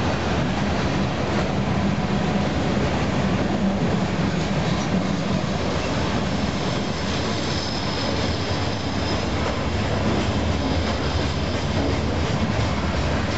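Covered hopper cars of a freight train rolling past, a steady rumble and rattle of steel wheels on the rails. A faint high-pitched wheel squeal comes in about halfway through and fades a few seconds later.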